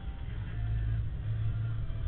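Chevrolet van's engine running, heard from inside the cab as a low drone that swells and eases a few times.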